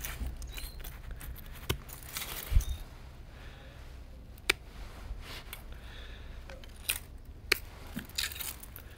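Garden scissors snipping off the withered old leaves of a potted Christmas rose (hellebore): about half a dozen sharp, irregularly spaced snips over a soft rustle of dry foliage.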